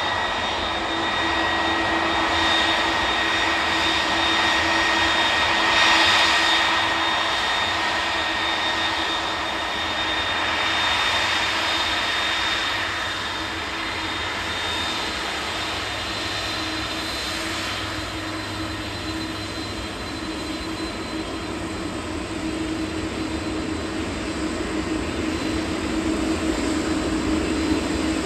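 Airbus A330 airliner taxiing with its twin jet engines running: a steady engine noise with a thin high whine over it and a low hum beneath.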